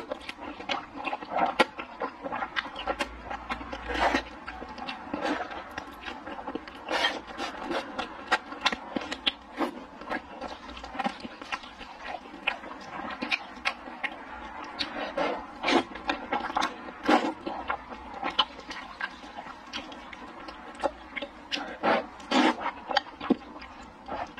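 Slurping and chewing of thick sweet potato starch noodles: many short wet clicks, sucks and smacks at an irregular pace, with louder slurps here and there.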